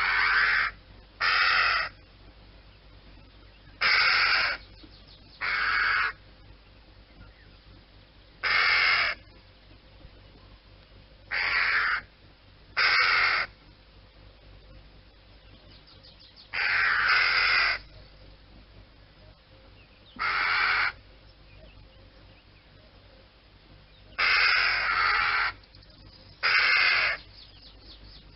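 Crow cawing: about eleven harsh caws, some single and some in quick pairs, a few seconds apart, with two longer drawn-out caws in the second half.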